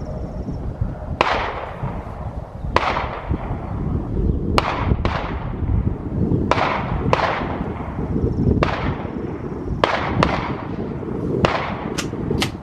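Gunshots from other shooters on the range, about a dozen sharp cracks at uneven intervals, each with a short echoing tail.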